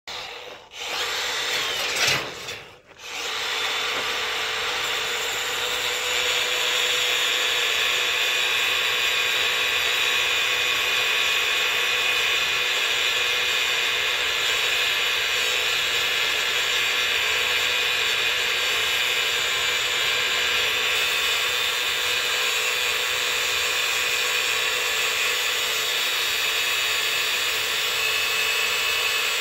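Angle grinder with a cut-off wheel cutting through the steel bars of an IBC tote cage, a steady high whine. It stutters briefly in the first few seconds, then runs on without a break.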